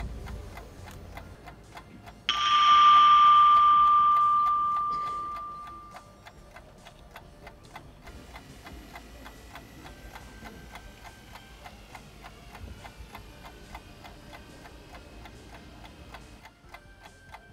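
A steady, rapid clock-like ticking, with a single bell-like chime struck about two seconds in that rings out and fades away over about four seconds. Faint sustained tones join the ticking from about eight seconds in.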